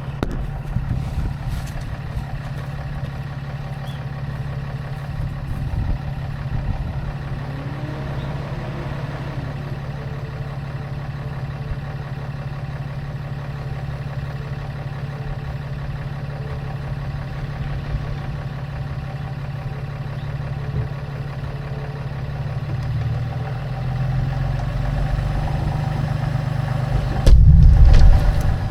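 An engine running steadily, presumably a machine being used to unload the tanks. It gets louder in the last few seconds and surges briefly, loudest about a second before the end, then drops back.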